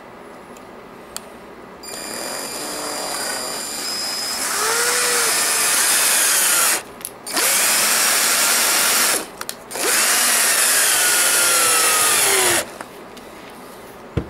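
Power drill working into the heel of a figure skate, fixing the loose heel with self-tapping screws. The motor winds up over a couple of seconds, then runs loud in three spells of two to three seconds with brief stops between, its pitch rising and falling as it works.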